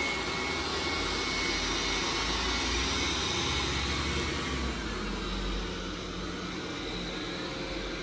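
Roborock Q7 Max robot vacuum running on the floor: a steady suction-motor whir with a faint whine, getting a little quieter about five seconds in.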